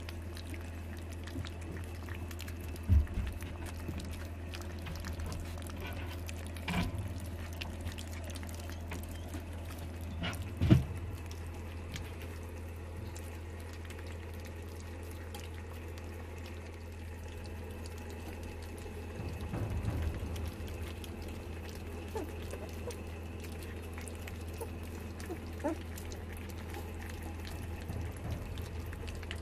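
A litter of puppies lapping and slurping wet mush from a steel feeding saucer: a steady patter of small wet clicks and smacks, with a few louder thumps, the loudest about ten seconds in. A steady low hum runs underneath.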